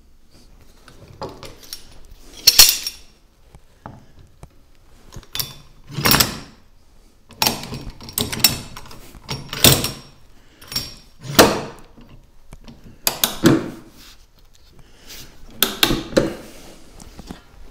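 A small wooden block shifted and set down on a Valchromat board: about a dozen short wood-on-board scrapes and knocks at uneven intervals. The loudest comes about two and a half seconds in.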